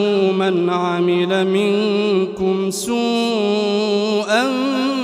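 A man chanting Quran recitation in a slow melodic style, holding long ornamented notes that waver in pitch. About halfway through he pauses briefly for a breath, then begins a new drawn-out phrase.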